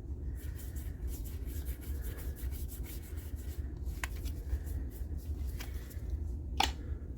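Trading cards sliding and rubbing against each other as a freshly opened booster pack is flipped through by hand, a quick run of light scrapes with a couple of sharper clicks, over a steady low hum.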